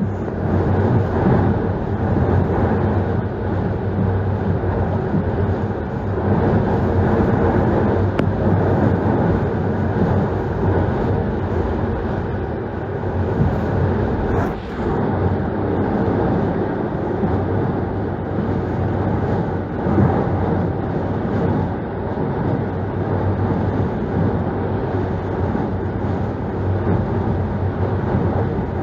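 Hurricane-force wind blowing steadily with a continuous low rushing rumble, buffeting the microphone.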